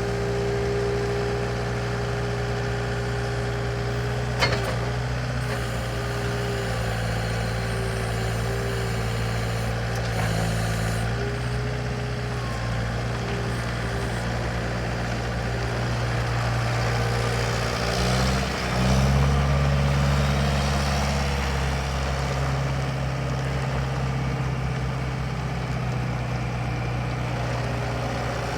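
2008 Bobcat T320 loader's diesel engine running steadily, with one sharp knock about four seconds in. About eighteen seconds in the engine speeds up for a few seconds, then settles back to its steady speed.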